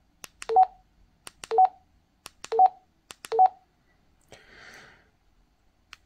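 Keypad of a Baofeng 5RM handheld radio pressed four times, about once a second while stepping through its menu: each press a small click followed by a short two-note beep rising in pitch. A short hiss follows about four seconds in.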